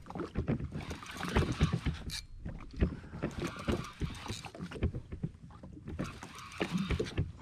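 Small waves knocking and splashing irregularly against the hull of a drifting jet ski, with wind gusting on the microphone.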